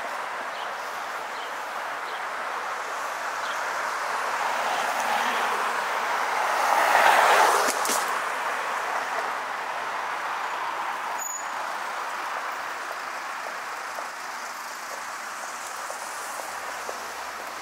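Road traffic on a city street: a steady hiss of tyres and engines, with one vehicle passing close that swells and fades about seven seconds in.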